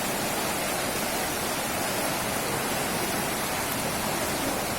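Steady rush of floodwater, an even noise with no breaks.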